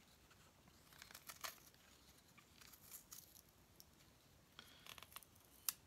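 Faint knife cuts: a long X-Acto-style blade shaving slices off a laminated plywood propeller blank in a few short, scattered scraping strokes, with one sharper snick near the end.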